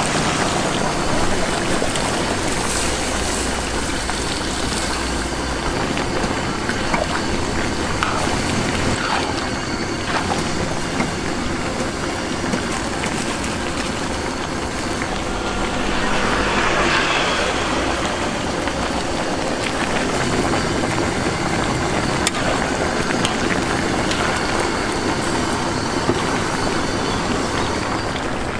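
Steady rushing noise of the gas burner heating a large pan of curry, with a brief louder hiss a little past halfway.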